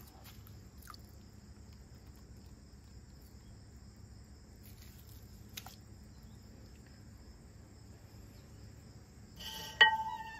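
Quiet, steady hum of an electric pottery wheel spinning, with a faint high-pitched whine over it. Near the end, a sharp ringing clink.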